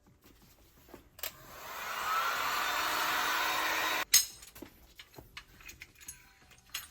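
Heat gun blowing: it builds up over about a second, runs steadily for about two seconds, then cuts off suddenly, followed by a sharp clack and a few light clicks. It is heating a motorcycle fork leg around the old fork seal to loosen the seal for removal.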